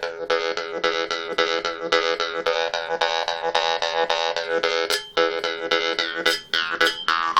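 Jaw harp with a narrow steel reed being played, its reed plucked about five times a second over a steady twanging drone while the overtones shift. The playing breaks off briefly about five seconds in, then ends with a few looser twangs.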